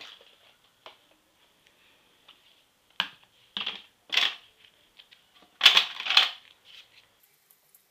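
Makeup containers and cosmetics clattering and knocking together while being rummaged through, with a few sharp knocks; the loudest pair comes about two seconds before the end.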